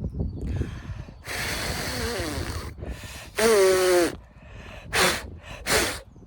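Farm animals close by: a long breathy huff, then a short wavering call about three and a half seconds in, and two quick breathy snorts near the end.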